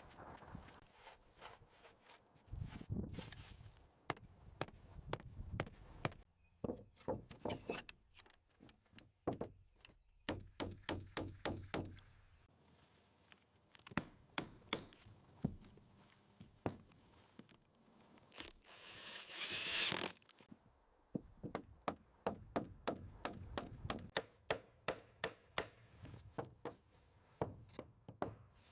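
Hand tools knocking on wood: runs of sharp thunks and taps, several a second, like a mallet on a chisel or an axe chopping timber. About two-thirds through there is one longer scraping rush.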